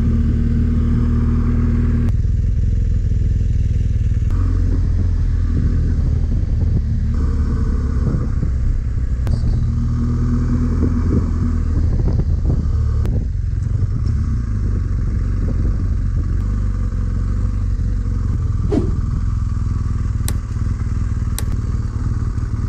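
BMW R1250GS Adventure's boxer-twin engine running as the bike rides slowly, heard from on board, with the engine speed changing several times. A few sharp clicks come near the end.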